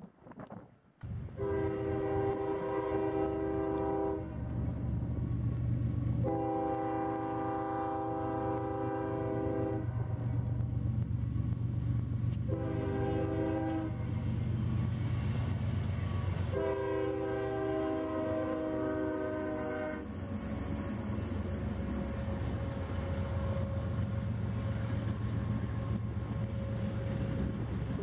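CSX freight train's diesel locomotive air horn sounding the grade-crossing signal, long, long, short, long, over the low rumble of the diesel engines. After the horn stops, the locomotives pass and the freight cars roll by on the rails.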